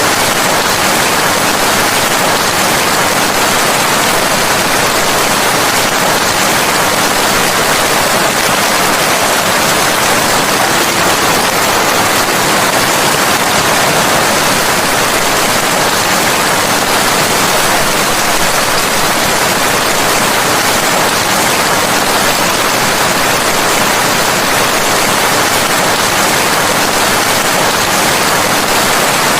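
Steady heavy rain, a dense even hiss that does not change.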